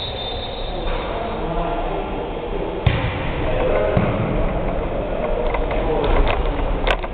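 Volleyball struck by hand: one sharp smack about three seconds in and more quick hits near the end as the ball is played back and forth, over indistinct players' voices.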